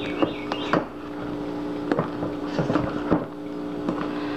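Black spatula scraping and knocking against a stainless steel mixing bowl while beaten egg whites are folded, giving several irregular knocks and scrapes. A steady low hum runs underneath.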